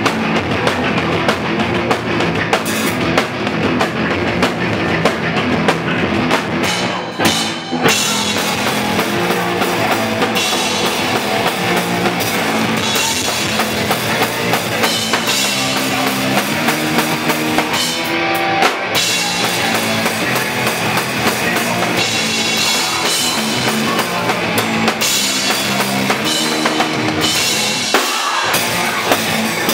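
Hardcore punk band playing live: distorted electric guitars and a fast drum kit, loud throughout, with a short break about seven to eight seconds in.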